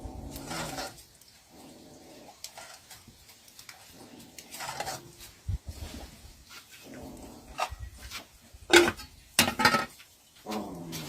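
Short animal calls, several times, with the loudest cluster near the end, among light clatters and knocks.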